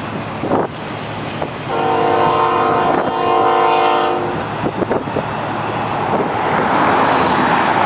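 Freight locomotive air horn sounding a chord of several notes, held for about two and a half seconds with a brief dip partway. After it, the rumble of the passing freight train grows louder.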